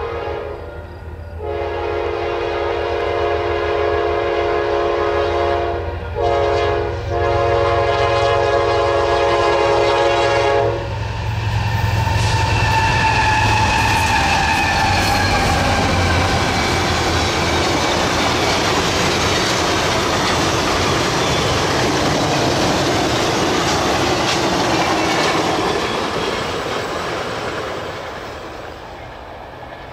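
CSX diesel locomotive horn sounding long, long, short, long for a grade crossing. The locomotives then pass with a low engine rumble and a falling whine, followed by the steady rush and clatter of passenger cars rolling by, fading near the end.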